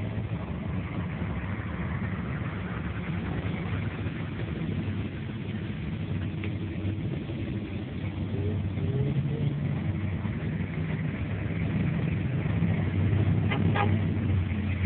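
Off-road competition trucks' engines idling with a steady, deep rumble that grows louder in the second half. There are a few sharp clicks near the end.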